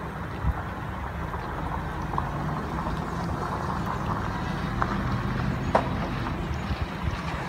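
A motor vehicle engine running steadily at low revs, with a few brief clicks on top.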